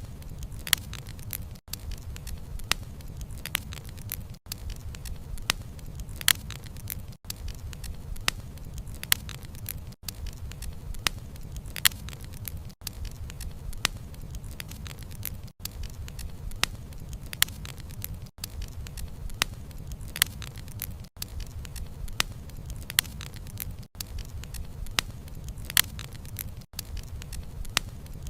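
Wood campfire burning: a steady low rumble of flames with frequent sharp pops and crackles of firewood. The sound cuts out briefly about every three seconds.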